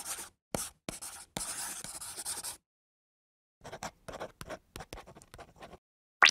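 Pen-scratching writing sound effect: a run of scratchy strokes, a pause of about a second, then a quicker string of short strokes. A sudden loud hit comes in right at the end.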